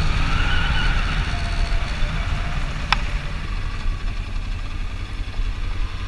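Motorcycle engine running at low speed through a slow cone course, its pitch rising and falling gently, under a steady low wind rumble on a helmet-mounted microphone. One sharp click about three seconds in.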